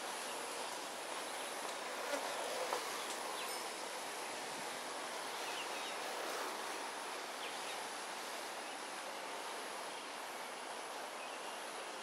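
Steady outdoor insect din with a constant high-pitched whine, and a couple of faint clicks two to three seconds in.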